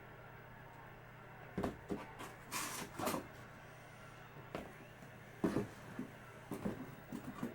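Scattered knocks and brief rustles of things being handled and set down on a table, as of card boxes and packs being moved, over a steady low electrical hum.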